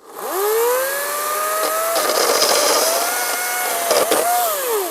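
EGO 14-inch 56-volt battery chainsaw's electric motor whining up to speed and cutting through wood, with the chain rasping through the cut. The whine winds down at the end as the trigger is released.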